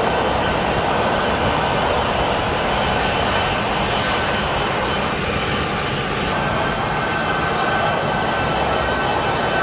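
A Boeing C-17 Globemaster III's four turbofan engines running as the jet taxis: a steady, loud rushing engine noise with a thin, steady whine above it.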